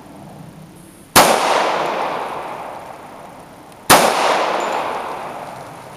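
Two gunshots about two and a half seconds apart, each a sharp crack followed by a long echo fading away.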